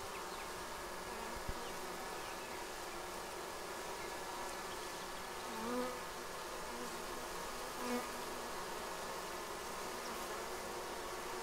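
Honey bees buzzing steadily at a hive entrance. A louder insect buzz swells and fades twice as it passes close, about six and eight seconds in: a yellow jacket wasp cruising by.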